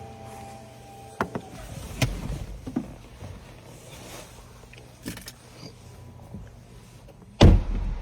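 Mechanical sounds from a Bugatti: a run of clicks and clunks with a faint whirring tone in the first second or so, then a loud, heavy thump near the end.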